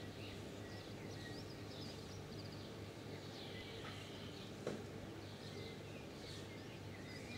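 Small birds chirping and twittering on and off over a steady low hum, with a single sharp click a little past the middle.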